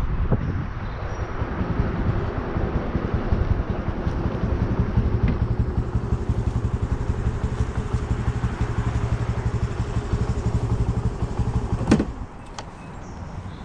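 Honda Navi's 109cc single-cylinder four-stroke engine running steadily. About twelve seconds in there is a sharp clack, and the engine sound drops away.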